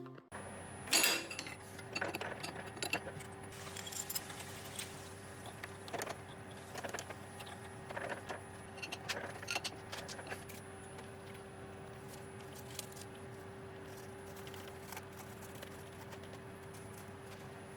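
A milling machine running with a steady whine, with irregular small metallic clinks and ticks that come often for about ten seconds and then thin out.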